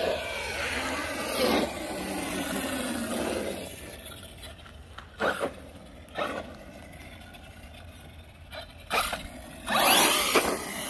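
Traxxas Kraton RC car's electric motor whining and its tyres scraping as it is driven, the whine falling in pitch after about three seconds. Then several short sudden bursts of motor and tyre noise, the loudest near the end.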